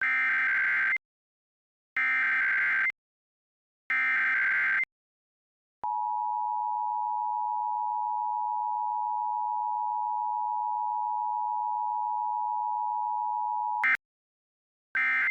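Emergency Alert System tones: three one-second bursts of SAME header data, two seconds apart, then a steady single attention tone that holds for about eight seconds. Near the end the tone gives way to the short end-of-message data bursts.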